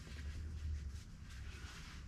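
Faint low hum of workshop room tone, with no hammer blows.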